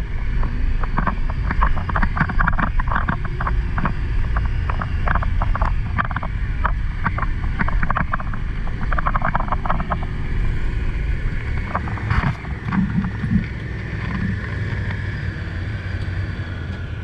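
Honda side-by-side utility vehicle driving over a rough, rocky dirt trail: a steady low engine and drivetrain rumble with fast, irregular clattering and rattling for the first ten seconds or so, thinning out as the ride smooths.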